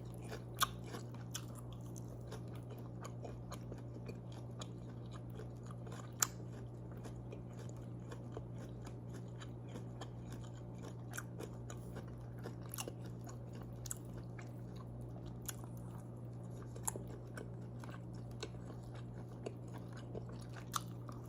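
A person chewing and biting food close to the microphone: irregular wet clicks and crunches, a few sharper ones standing out, over a steady low hum.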